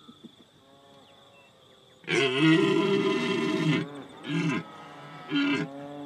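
Red deer stag roaring: one long roar about two seconds in, followed by two short roars. This is a stag's rutting call.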